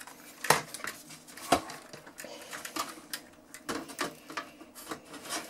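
Front panel of a Sony TC-KE400S cassette deck being handled and pushed onto the chassis: a few separate knocks and clicks as it is seated into its notches, the loudest near the end.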